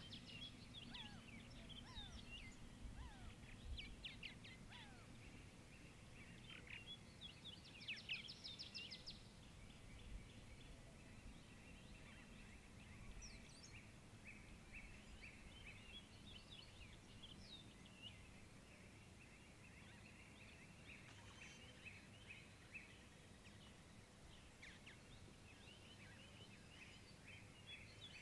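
Faint outdoor shoreline ambience with wild birds calling: scattered short, high chirps and whistles, thickest in a flurry about eight seconds in, over a faint steady high hiss.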